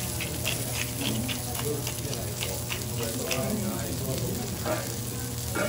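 Thick wagyu steak searing on a steel teppanyaki griddle: a steady sizzle in its rendered fat, with frequent small crackles and pops, several a second.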